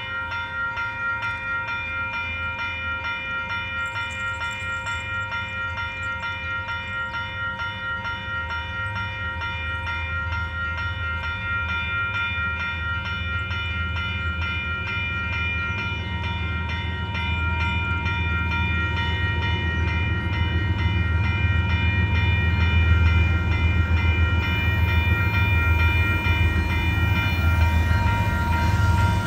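Railroad crossing warning bell ringing steadily over the low rumble of an approaching freight train's diesel locomotives, which grows louder toward the end.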